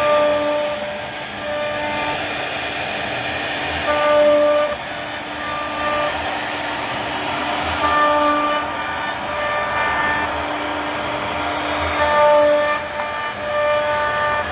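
CNC router cutting wood: a steady hiss from the spindle and cut, with short steady tones that switch pitch and stop and start every half second or so.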